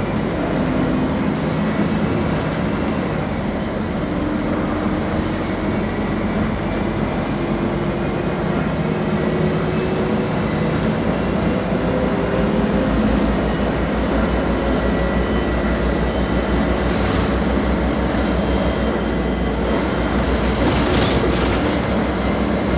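Mercedes-Benz O-500 MA articulated bus under way, its OM-457 LA six-cylinder turbo-diesel and Voith DIWA automatic transmission running steadily, with a faint whine that climbs slowly in pitch as it gathers speed. Some rattling comes in near the end.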